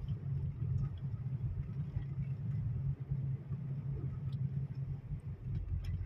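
Car interior noise while driving: the engine and tyres make a steady low rumble inside the cabin.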